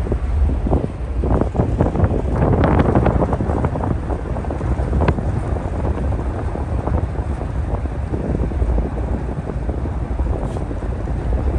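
Wind buffeting the microphone on the open deck of a moving ferry, a steady low rush with a cluster of harder gusts in the first few seconds.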